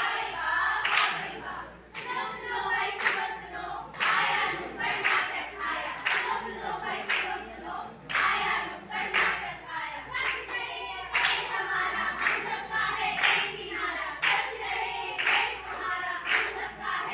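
A group of performers singing together in chorus while clapping a steady beat, about two claps a second.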